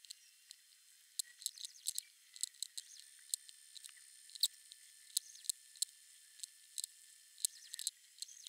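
Pencil scratching and ticking on paper in short shading strokes: irregular sharp ticks and scratches, several a second.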